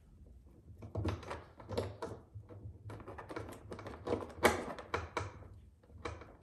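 A screwdriver turning a Phillips screw into a metal drawer slide rail: a run of irregular clicks and scrapes, with the loudest click about four and a half seconds in.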